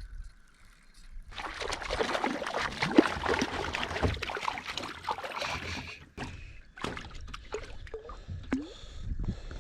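Water splashing and sloshing right beside a kayak, busiest for several seconds and then dying down to scattered small splashes.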